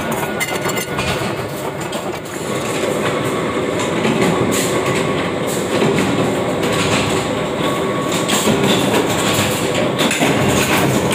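Continuous loud clattering of workshop machinery, a dense run of small metallic knocks that goes on without a break.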